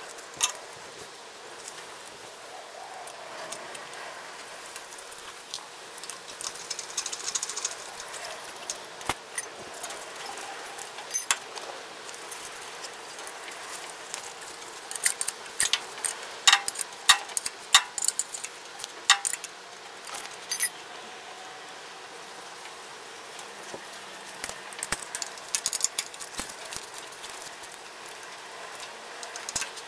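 Hand tools clicking and clinking on metal parts of a tractor during fan-belt work, in scattered strokes with a busier run in the middle. The engine is not running.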